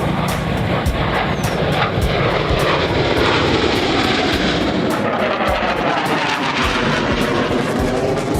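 Jet fighter aircraft flying past, a steady loud jet engine roar with a sweeping, phasing whoosh that shifts in pitch as they pass.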